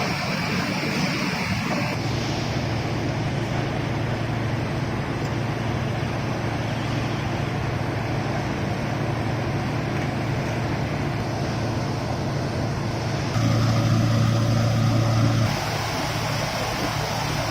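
Steady industrial machinery noise from a rolling mill: a continuous low hum under a rushing noise. The sound shifts abruptly about two seconds in, and it is louder for about two seconds near the end.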